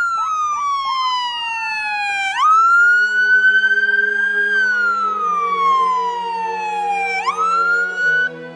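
Police car siren wailing: each cycle is a long, slow fall in pitch followed by a quick rise, repeating about every five seconds. It cuts off just before the end as music comes up.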